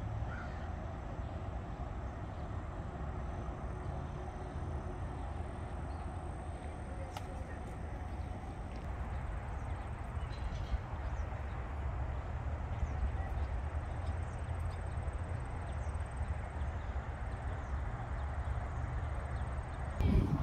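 Steady outdoor background noise made up mostly of a low rumble, with one short click about seven seconds in.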